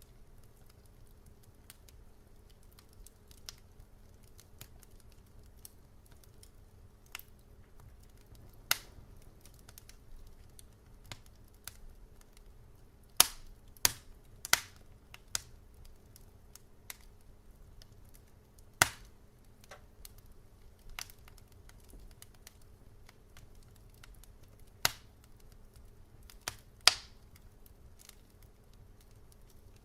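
Wood fire crackling: scattered sharp pops and snaps at irregular intervals, a handful of them much louder, over a low steady hum.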